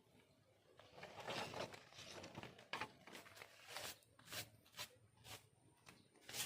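Rustling, then a series of short, light clicks and knocks at irregular intervals: objects being handled close by.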